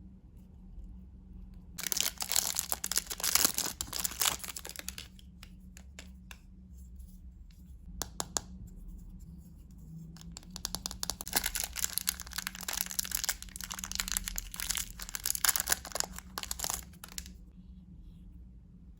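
Foil wrapper of a Kinder Surprise egg being torn open and crinkled by hand, in two spells of dense crackling with a single sharp click between them.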